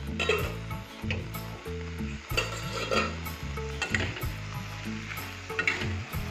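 Perforated metal spoon stirring and scraping arum stems and dry fish around a steel wok, with the food sizzling as it fries. The scraping strokes come roughly once a second; the pan's liquid is nearly cooked off.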